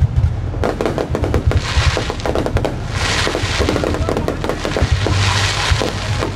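A fireworks display: a dense run of bangs from bursting shells, with swells of crackling at several points.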